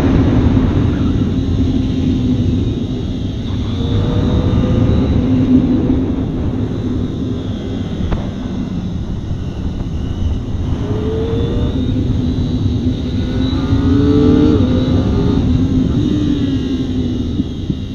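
Kawasaki ZX-25R's 250 cc inline-four engine heard from the saddle while riding, its pitch rising several times under acceleration and dropping back as the bike slows for bends. Heavy wind noise runs underneath.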